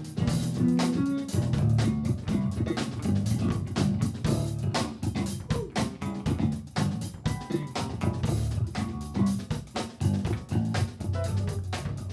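Live funk groove with a five-string electric bass to the fore, its low line played over a drum kit's steady kick and snare, with electric guitar.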